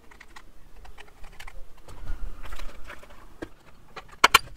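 Bolts, washers and hand tools being handled while a windscreen is bolted on: light, irregular clicks and taps, with two sharper clicks about four seconds in.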